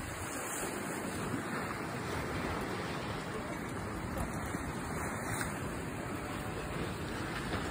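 Steady rush of small waves breaking and washing against the rocks of a rock jetty.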